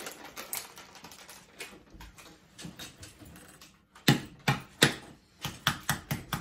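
Hand smacking a small can of pet food over and over to knock the food loose. Faint rustling and clicks at first, then three loud knocks about four seconds in, then a steady run of taps, about three a second.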